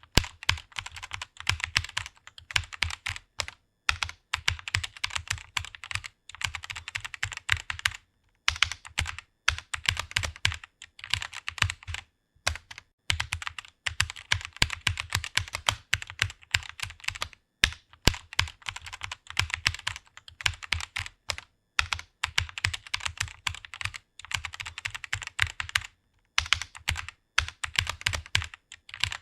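Typing on a computer keyboard: fast, steady runs of key clicks broken by brief pauses every few seconds, as a Bible verse is typed out in a typing test.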